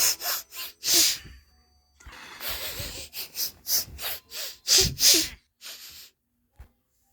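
A lion sniffing: quick runs of short, breathy sniffs and exhales through the nose, with a short pause about a second and a half in and two louder blows near the end.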